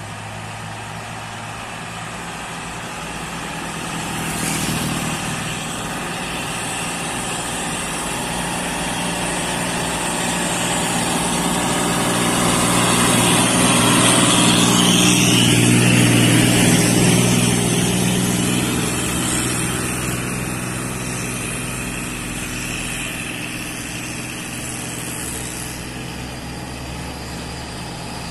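Truck engine pulling up a hill, steady and growing louder as it comes past. It is loudest about halfway through, then fades away.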